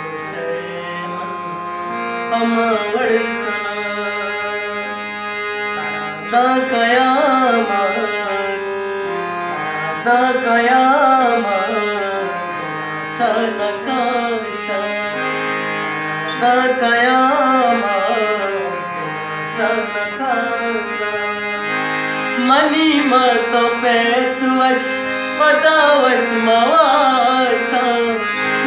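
A man singing a Balochi ghazal in long, wavering, ornamented phrases over the sustained chords and drone of a hand-pumped harmonium.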